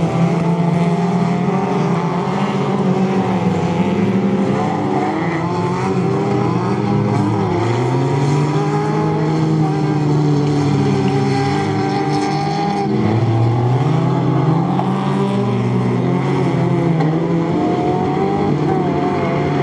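Several autocross race cars' engines at full throttle on a dirt track, their overlapping notes climbing and dropping in pitch as the drivers rev and lift.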